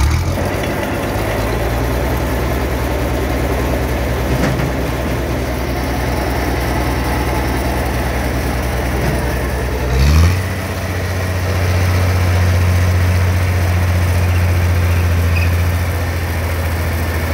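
Heavy truck-mounted recovery crane's engine running steadily. About ten seconds in it revs up briefly, then settles into steady running at a slightly higher speed.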